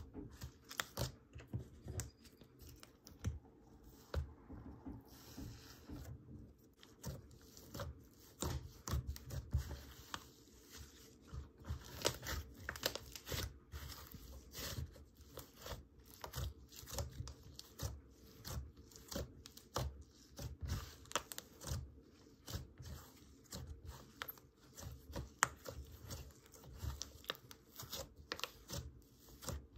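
Snoop Slimes' Froggy Freeze Sorbet slime being stretched, folded and pressed by hand, making a dense, irregular run of small sticky crackles and pops over a soft low squishing.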